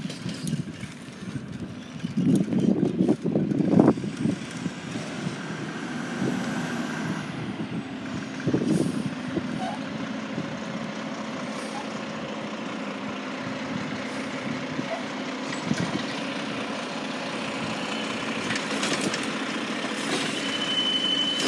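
Mack garbage truck's diesel engine running as the automated side-loader approaches and draws up to the curb, growing louder toward the end, with a hiss of air brakes and a short high tone as it stops. A few loud bumps come about two to four seconds in.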